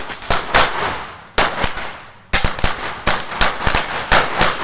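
A thousand-wala firecracker string going off: rapid, sharp pops in close succession, with short lulls about one and two seconds in before the crackling picks up again.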